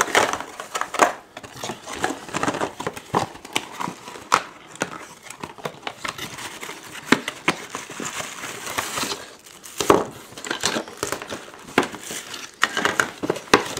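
Cardboard box and clear plastic packaging tray being opened and handled, crinkling with many irregular clicks and crackles.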